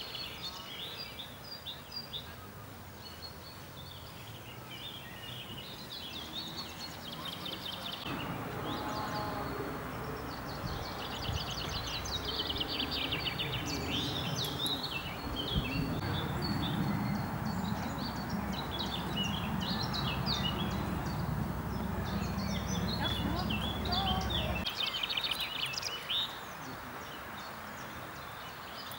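Many small birds singing and chirping in the surrounding trees. Through the middle stretch a low rumble with faint voices lies underneath, and it cuts off abruptly near the end.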